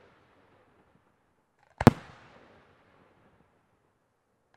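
A single sharp bang from an aerial firework shell about two seconds in, trailing off over about a second.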